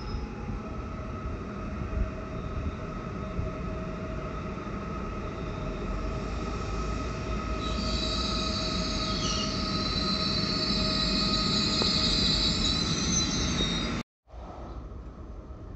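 Train running through a railway station with a steady rumble and hum, joined about halfway by high-pitched wheel squeal that grows louder. The sound cuts off abruptly near the end, giving way to a much quieter background.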